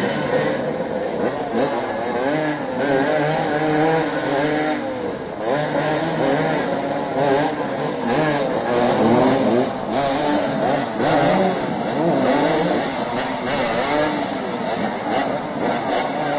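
Several motoball motorcycles revving their engines at once, the overlapping engine notes rising and falling in short, repeated blips as the riders jostle in a tight scrum.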